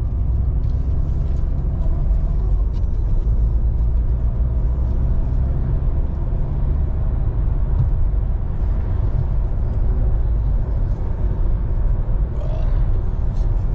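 Steady low road rumble and engine noise of a car driving, heard from inside the cabin.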